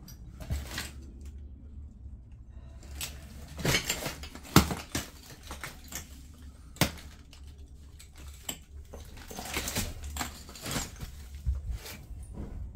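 Scattered clinks, knocks and rustling of loose debris being handled or stepped on, with two sharp knocks standing out, one about a third of the way in and one about halfway.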